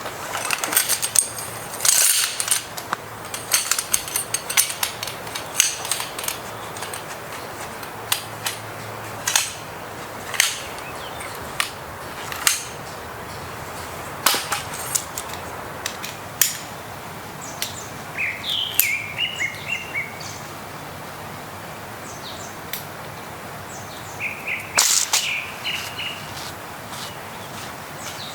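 Scattered sharp clicks and knocks, irregular and unrhythmic, with a bird chirping in two short runs, about two-thirds of the way through and again near the end.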